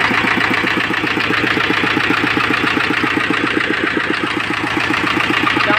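Swaraj 724 FE tractor's two-cylinder diesel engine idling with a steady, even beat.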